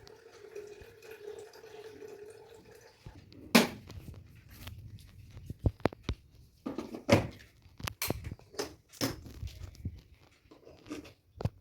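A series of light, irregular knocks and taps, about a dozen, over a faint steady hum that fades after the first three seconds.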